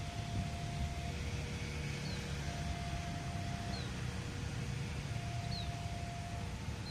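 Outdoor background noise with a low rumble, and a faint two-pitch tone that swaps between a higher and a lower note about every 1.3 seconds. A short, high, falling chirp comes roughly every second and a half.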